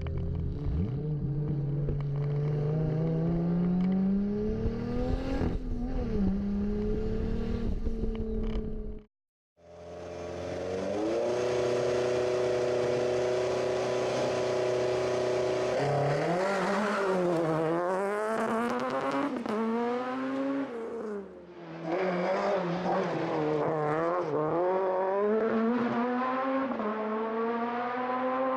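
2JZ-GTE straight-six in a Saturn Sky, heard from on board, pulling hard with its pitch climbing to a gear change about five seconds in. After a short break, a VW Golf STW hillclimb car's swapped Audi 2.0 four-cylinder holds revs, then launches and accelerates through the gears, its pitch rising and dropping with each shift.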